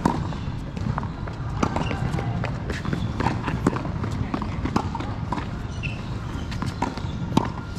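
Tennis balls being hit with rackets and bouncing on a hard court during a rally: sharp, irregular pocks every second or so, over a steady low rumble.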